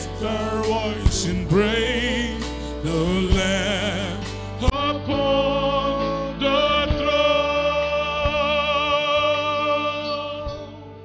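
A man sings a gospel worship song into a microphone over a steady low instrumental backing. In the second half he holds one long note with vibrato, and the music fades out near the end.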